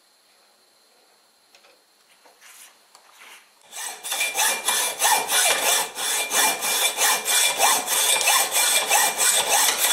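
Near silence with a few faint ticks, then from about four seconds in a loud, rhythmic scraping of about three strokes a second, like sawing or rasping.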